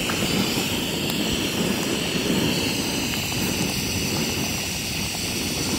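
Jetboil camp stove's gas burner running with its water at a boil: a steady, even roar.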